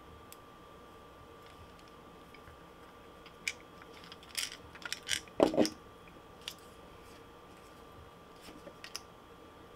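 Handling noise from a 3D-printed plastic lure body turned and pressed in the fingers while stick-on fish eyes are applied: scattered light clicks and taps, with a louder knock about five and a half seconds in and a few faint clicks near the end.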